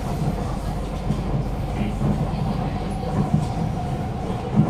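Interior running noise of a C151A metro car: a steady rumble from wheels on rail, with a steady hum from the traction motors, described as echoey. Two short thumps from the running gear come late, the louder just before the end.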